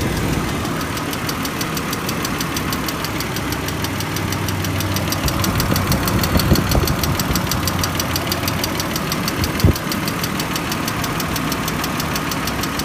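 BMW E39's engine idling with a rapid, even ticking over its running sound, a noise the owner cannot account for. A short, louder thump about ten seconds in.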